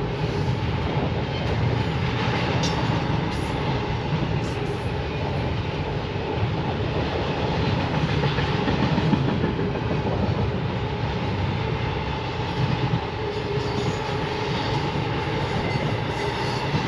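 BNSF freight train rolling past, a steady continuous rumble of its cars' wheels on the rails.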